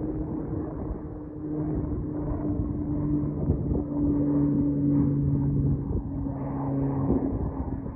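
Pilatus PC-12/47's single PT6A turboprop engine droning at takeoff power, a steady low hum over a rumble that grows to its loudest about halfway through and then eases.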